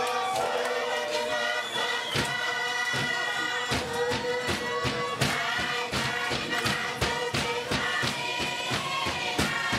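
Group of voices singing in chorus with held notes, over a steady beat of hand strikes on a mat, about two to three a second, in the manner of a Tuvaluan fatele.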